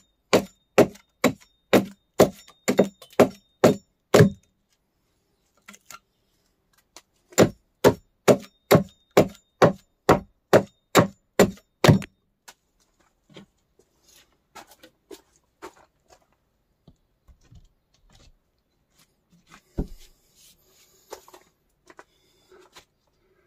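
Quick, steady blows of a hand tool striking wood, about two to three a second, in two runs separated by a pause of about three seconds; after that only scattered light knocks and handling sounds.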